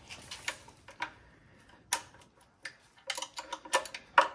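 Hand ratchet clicking in short strokes while loosening the oil pickup tube bolt on a Ford Coyote V8. A few separate clicks come first, then a quicker run of clicks in the last second and a half.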